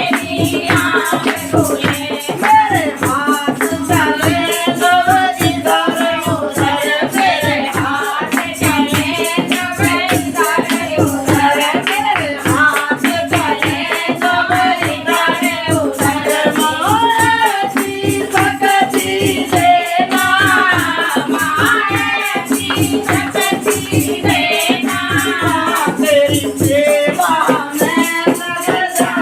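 A woman singing a Hindi devotional bhajan over a fast, steady beat of hand percussion with rattling shakers.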